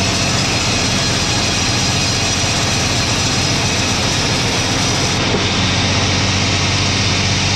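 Powered log saw running steadily while ripping a log into slab boards: a continuous motor drone under the even noise of the cut.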